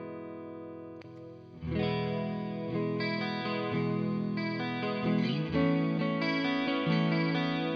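Fender Stratocaster electric guitar played through a pedalboard into a Fender Hot Rod Deluxe III amp: a chord rings and fades, then fresh chords are struck about a second and a half in, followed by further chord changes.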